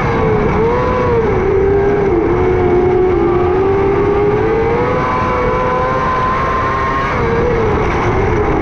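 600cc micro sprint car engine running at high revs, its pitch dipping briefly and climbing back a few times as the throttle is lifted and reapplied.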